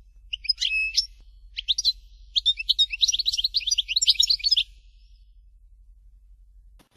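European goldfinch singing a fast, twittering phrase of rapid high notes, about four seconds long, then falling silent. A short click comes near the end.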